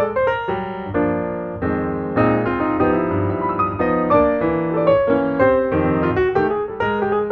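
Background piano music: a steady stream of melodic notes and chords.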